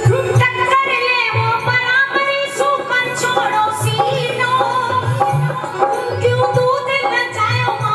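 A woman singing a devotional bhajan into a microphone, her voice gliding through ornamented phrases over the steady beat of a hand drum.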